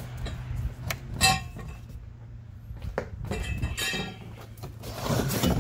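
Loose steel bars and pipes of an aerator/spreader kit clinking and knocking against each other inside a cardboard shipping box as it is opened, with a ringing clink about a second in and more clinks around three and a half to four seconds. Cardboard rustles near the end.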